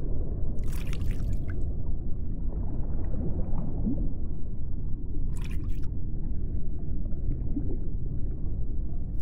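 Steady low underwater-like rumble with faint gurgling, and two brief hissy bursts of bubbling, about a second in and again around five and a half seconds in.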